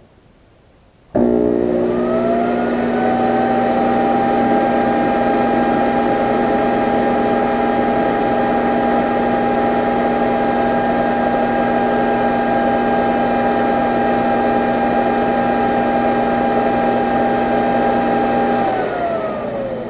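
Metal lathe switched on about a second in, its motor whine rising to speed and then running steadily in reverse as it turns a scratch-built two-cylinder model steam engine's crankshaft and pistons to run in new piston washers. Near the end the lathe is switched off and the whine falls away as it spins down.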